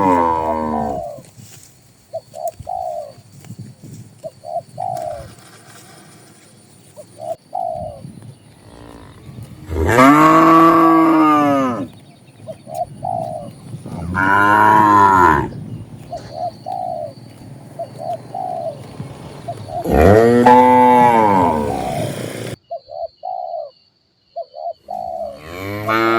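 Cattle mooing: three long, loud moos of about two seconds each, with another call trailing off at the start and one beginning near the end. Between the moos, doves coo in short repeated notes.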